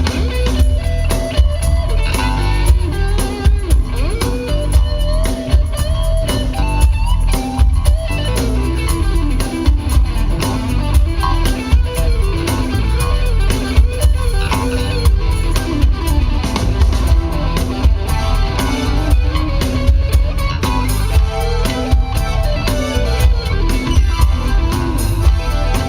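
Live band playing an instrumental passage: an electric guitar picks out a melody over bass and a drum kit keeping a steady beat.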